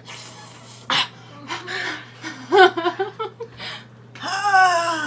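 Women's non-verbal pained vocal sounds with spicy cinnamon fireball candy in their mouths: hard breathing, laughing and whimpering, then a long moan near the end that falls in pitch.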